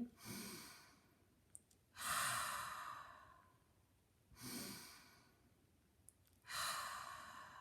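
A woman taking slow, deep audible breaths in and out, four breath sounds about two seconds apart, each swelling suddenly and fading away.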